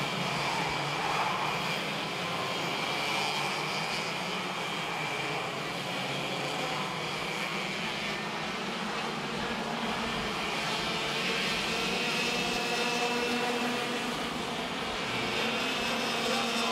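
Several two-stroke racing kart engines running at speed as a group of karts goes by, a continuous buzzing drone.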